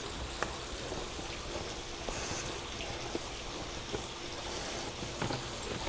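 A long knife slicing slowly down through a dry-aged ribeye loin, faint crackles and a few small ticks as the blade works through the hard dried crust, over a steady low hiss.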